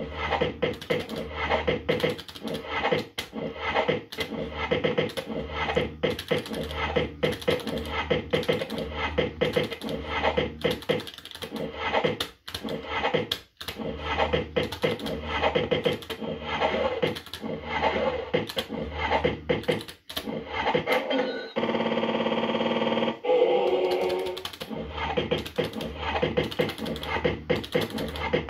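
JPM Red Hot 6 fruit machine being played game after game: fast clicking and electronic beeps and jingles as the reels spin and stop, over a regular low pulse. A steadier electronic tone takes over for about two seconds near three-quarters of the way through.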